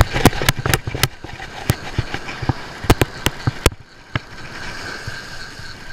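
Hands working a conventional fishing reel close to the microphone: about a dozen sharp, irregular clicks and knocks, bunched in the first second and then spaced out until about four seconds in.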